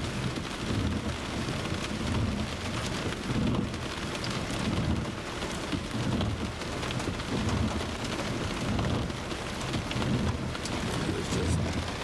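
Heavy rain drumming steadily on a car's roof and windshield, heard from inside the car, with a low rumbling undertone and scattered sharp drop impacts.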